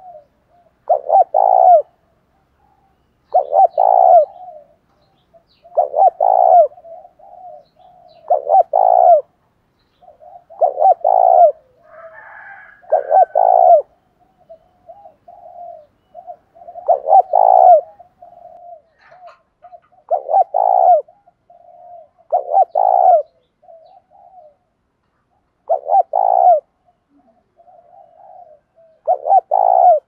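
Spotted dove cooing: loud, doubled coo phrases about every two to three seconds, with soft short coos between them. This is a lure bird's challenge cooing ('thúc đấu'), used to provoke rival doves.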